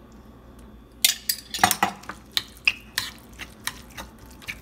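A metal spoon stirring a thick mix of grated beetroot and yogurt in a ceramic bowl. It clinks and scrapes against the bowl in a string of irregular knocks, starting about a second in.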